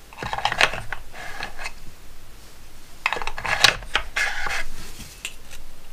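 Small wooden drawers of a bandsaw box being handled and slid into their slots: wood rubbing and scraping on wood with light knocks, in two short spells.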